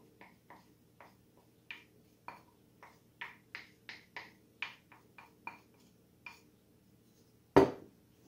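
Wooden spoon scraping and tapping against a ceramic bowl, a quick series of light clicks about three a second as the peanut butter and melted margarine mixture is scraped out. Near the end comes one loud knock as the ceramic bowl is set down on the countertop.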